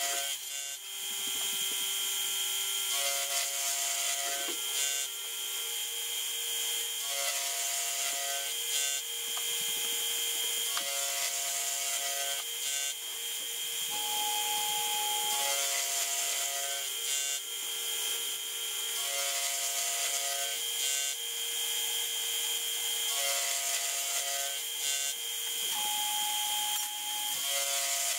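Milling machine cutting teeth into an A2 tool-steel ratchet blank, sped up sevenfold: a steady high whine with a machine sound that repeats about every four seconds as cut follows cut.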